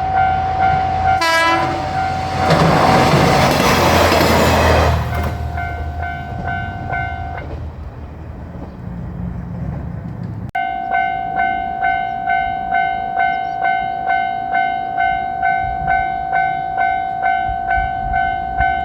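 Japanese level-crossing bell dinging about twice a second as a JR Shikoku 1000-series diesel railcar passes: its engine rumbles, a short horn toot sounds about a second in, and the train rushes by loudly for a couple of seconds. The bell stops after about seven seconds, then after an abrupt cut it rings again from about ten seconds in.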